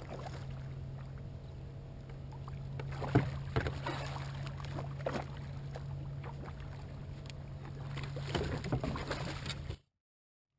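A hooked redfish thrashing at the surface right beside a kayak as it is fought on rod and line: a series of sharp splashes, the loudest about three seconds in, over a steady low hum. The sound cuts out completely just before the end.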